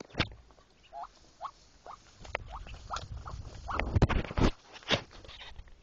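Newly hatched ducklings peeping: a run of short, rising peeps about every half second. Rustling and bumping in the nest straw comes along with them, loudest about four seconds in.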